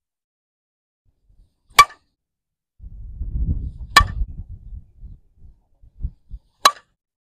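A slowpitch softball bat cracking against the ball three times, each hit sharp and about two and a half seconds apart. A low rumble runs under the second hit, and a couple of soft thumps come just before the third.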